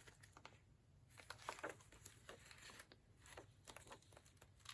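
Faint rustles of old book pages being handled and turned, a few soft crinkles scattered through otherwise quiet room tone.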